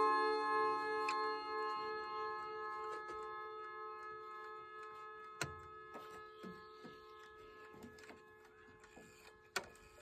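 Chime rods of a circa-1959 Junghans mantel clock ringing on after a struck note, amplified by the clock's resonator and slowly dying away, while the floating-balance movement ticks. Two sharper clicks come about five seconds in and near the end.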